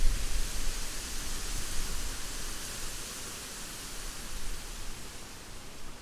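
Rain falling on forest foliage: a steady, even hiss, with an uneven low rumble that is strongest at the start.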